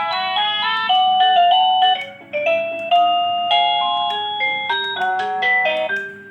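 Wireless doorbell receiver playing synthesized chime melodies through its small speaker, a quick run of bright electronic notes. About two seconds in the tune breaks off and a different melody begins, as when stepping through the doorbell's selectable ringtones.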